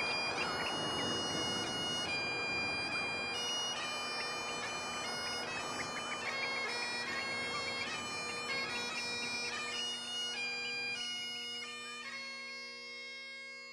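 Bagpipe music: steady drones held under a changing chanter melody, fading out over the last few seconds.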